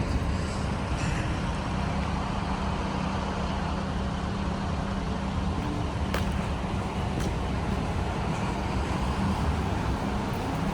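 A car driving on the road: a steady low rumble of tyres and engine, with a faint click or two about six seconds in.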